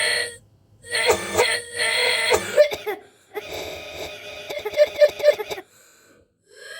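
A person coughing and hacking in two long, rough fits, the second broken into rapid coughs, with a short pitched vocal sound near the end.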